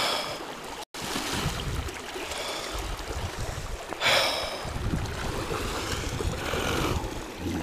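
Shallow river running over a riffle, a continuous rush of water, with wind buffeting the microphone in low gusts. A brief louder splash-like burst comes about four seconds in.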